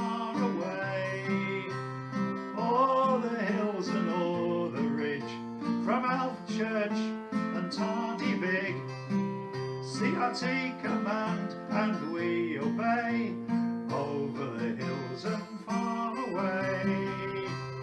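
Folk-style song: strummed acoustic guitar with a voice singing over it.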